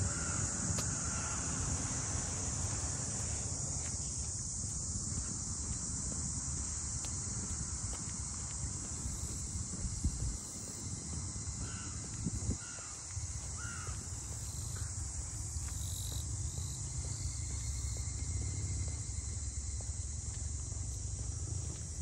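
Steady, high-pitched chorus of cicadas shrilling, with a crow cawing a few short times at the start and again around twelve to fourteen seconds in.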